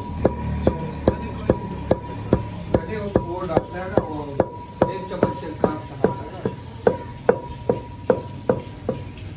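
Metal pestle pounding spices in a stainless steel mortar: an even run of sharp metallic knocks, about two and a half a second, over a steady high ringing tone.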